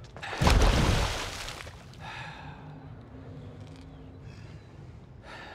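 A sudden loud rushing burst of noise about half a second in, heaviest in the low end, dying away over about a second. A faint steady low hum follows.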